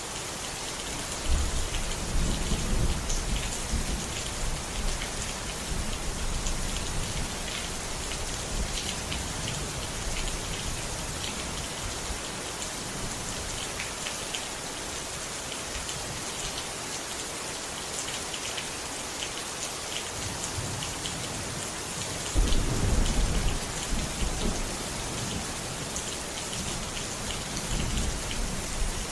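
Steady rain falling, with low rolls of thunder: one a little over a second in, another about 22 seconds in, and a weaker one near the end.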